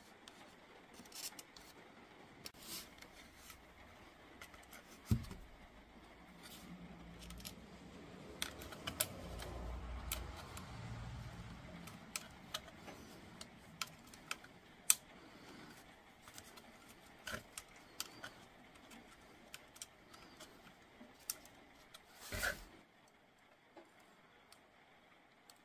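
Faint scattered clicks and taps from small tools and battery parts being handled during a battery circuit-board repair, with a sharper knock about five seconds in. A low rumble runs for several seconds in the middle.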